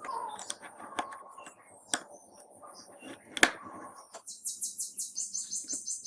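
A few sharp clicks and taps, the loudest about three and a half seconds in. Then a fast, even run of high chirps, about seven a second, through the last two seconds.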